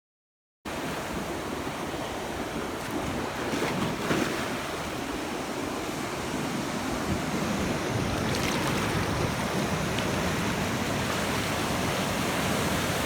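Ocean surf washing onto the beach with wind buffeting the microphone, a steady roar that swells slightly now and then. It starts abruptly after a moment of dead silence.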